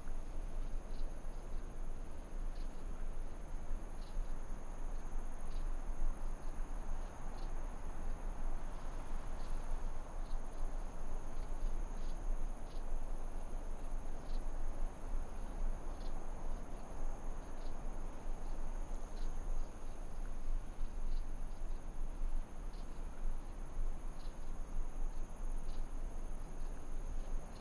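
Crickets trilling steadily, with faint regular ticks, over a constant low rumbling noise.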